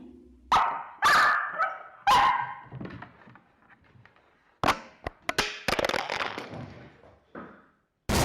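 A dog barks three times in the first two seconds, followed by a few sharp knocks and some clattering. Music starts right at the end.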